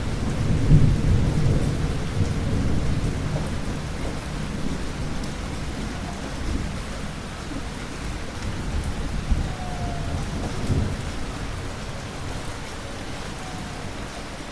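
Thunderstorm: rolling thunder over steady rain. A low rumble peaks about a second in and fades slowly, with smaller swells of rumble later, under a constant hiss of rain.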